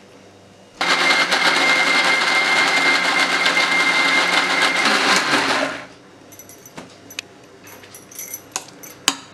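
Electric mixer grinder running for about five seconds, grinding a coarse wet masala paste in its stainless steel jar with a steady whine; it starts abruptly about a second in and winds down, followed by a few light clicks.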